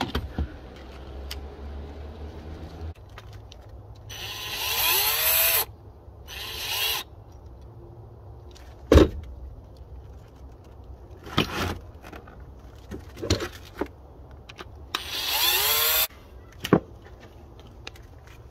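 Cordless power drill run in three short bursts, its motor pitch rising and falling with each. A few sharp knocks come between the bursts.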